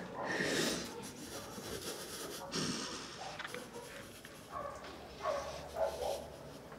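A man sobbing: ragged breaths and short, strained whimpering cries, coming about once a second in the second half.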